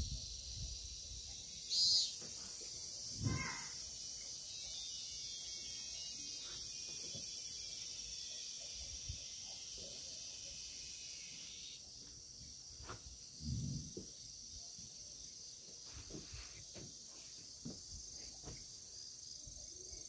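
Insects singing in summer vegetation: a steady high chorus throughout, joined about two seconds in by a loud, very high-pitched continuous buzz that stops about twelve seconds in. A few faint knocks come later.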